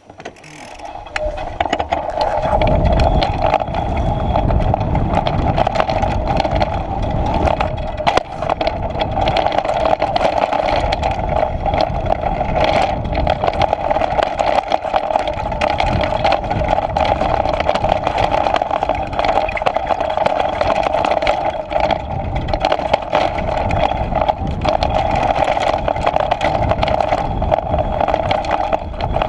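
Downhill mountain bike setting off and rolling fast down a dirt and stone trail: knobby tyres rumbling over the ground, the bike rattling constantly, and a steady loud buzz. It starts quiet and builds to full speed over the first couple of seconds.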